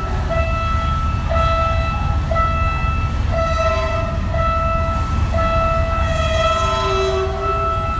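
Train horn sounded in a string of short blasts and then one long blast from about five seconds in, over the heavy low rumble of a passing train.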